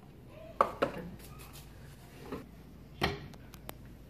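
Hard plastic knocks and clicks of a food processor's lid and bowl being handled, with two sharp knocks about half a second in and another knock followed by a few light clicks about three seconds in.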